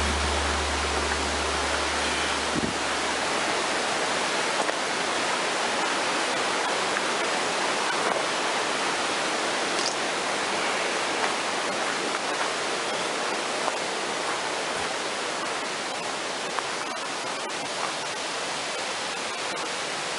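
Rocky mountain creek rushing steadily over boulders and riffles.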